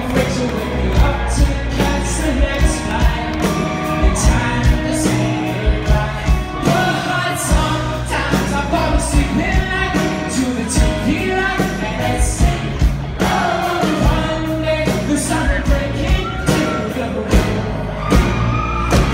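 Live pop-rock band playing loudly through a concert PA, with a singer's vocals over a steady drum beat and bass, heard from within the audience.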